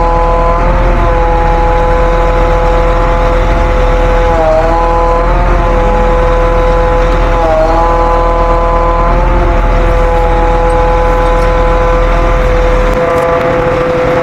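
Truck-mounted hydraulic crane's power unit running: a steady whine over the truck engine's low rumble, dipping briefly in pitch twice. The rumble drops away near the end while the whine carries on.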